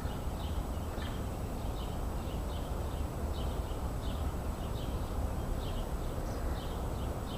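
Bird chirping repeatedly in short, high notes, about two a second, over a steady low outdoor rumble.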